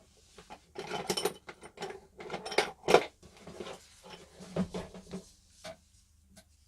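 Pliers and other small metal tools being handled, giving irregular clinks, knocks and scrapes, loudest about three seconds in.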